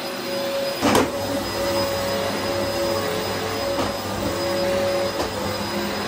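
Dyson DC04 upright vacuum cleaner running on carpet, a steady motor drone with a hum of several steady tones. A sharp knock about a second in is the loudest sound.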